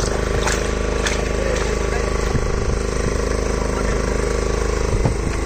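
A fishing boat's engine running steadily, a constant even hum.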